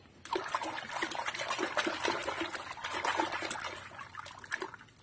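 A hand swishing and scrubbing a small toy in a basin of foamy soapy water: irregular sloshing and splashing. It starts about a quarter second in and thins out near the end.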